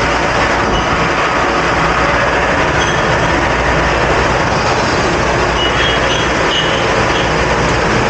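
Commercial conveyor dish machine running: a steady, loud wash of water spray and pump noise.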